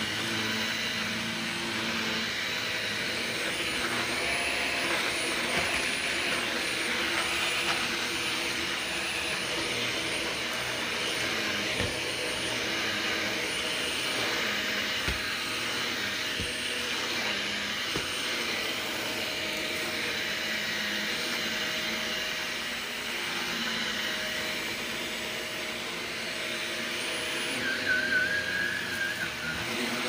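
A stick vacuum runs steadily with a constant motor whine and suction hiss as its powered brush head is pushed over carpet and rugs. A few sharp clicks of crunchy debris being sucked up come around the middle, and a brief, louder scratchy rattle comes near the end.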